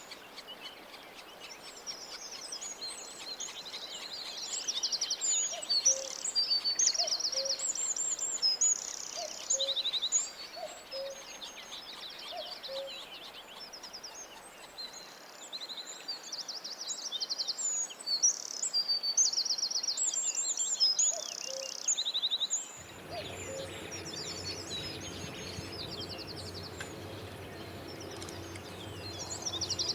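Several birds singing: a chorus of high chirps and rapid trills. Through the middle, a low short call repeats about once a second. About three-quarters of the way through, a steady low rumble joins.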